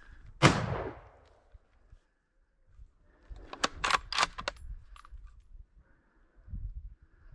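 A single gunshot about half a second in, its report ringing out and fading over about half a second. A few seconds later comes a quick run of sharp clicks and knocks.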